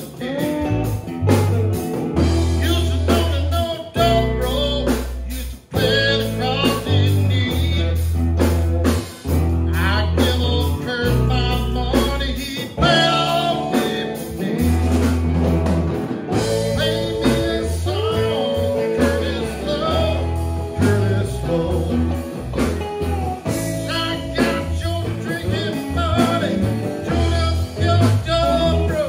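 A live band of electric guitars and bass guitar playing a blues-rock song, with held bass notes under a bending lead guitar line and a steady beat.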